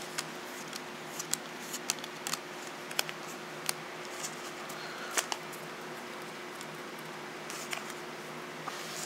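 Paper trading cards being handled and set down by hand: scattered faint clicks and flicks, irregular and a second or so apart, over a steady background hiss with a faint hum.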